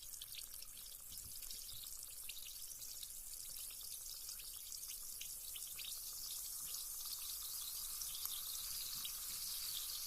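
Carbonated bath bomb fizzing in bath water: a continuous hiss of bubbles with fine crackling pops, growing slightly louder toward the end.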